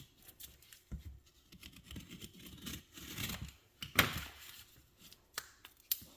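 Cardboard packing and tape being handled and torn open while unwrapping a parcel: irregular rustling and scraping with scattered sharp clicks, the loudest a snap about four seconds in.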